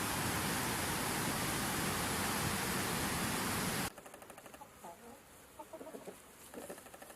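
A loud, steady rushing noise cuts off abruptly about four seconds in. Faint, short bird calls follow.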